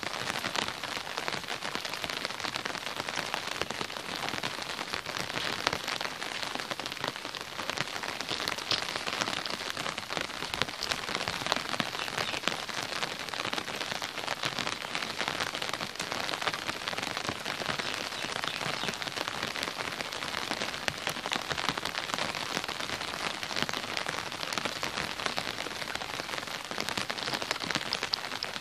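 Steady rain falling: an even hiss made of many small drop hits, with no let-up.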